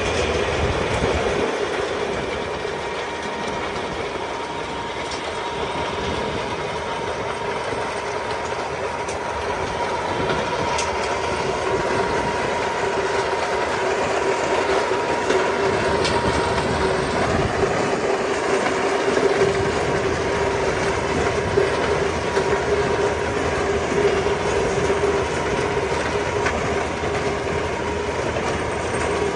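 Case tractor working a Maschio Gaspardo power harrow through dry, cloddy soil: the engine running under load and the harrow's rotors churning the ground, a continuous machine noise with a steady whine held throughout.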